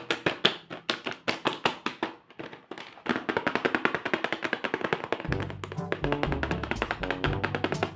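Background music made of fast, evenly spaced tapping or plucked notes; a bass line comes in about five seconds in.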